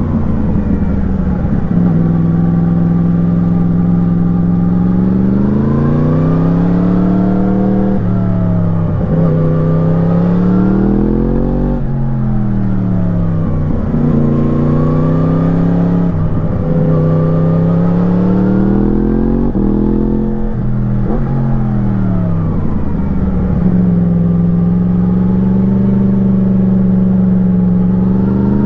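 2017 Yamaha MT-10's crossplane inline-four engine breathing through an Akrapovič slip-on exhaust under hard riding: the revs climb and cut sharply several times, fall away in between, then hold steady for the last few seconds.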